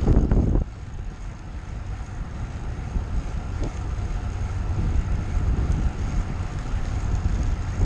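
Wind rushing over the microphone of a handlebar-mounted action camera on a moving road bike: a steady low rush, louder for a moment at the very start.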